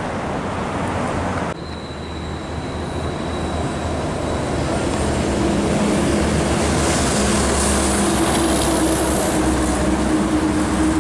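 Expressway truck traffic. About a second and a half in, the sound changes abruptly. Then a cab-over semi truck hauling a shipping container draws closer, and the steady hum of its diesel engine and its tyre noise grow louder as it passes.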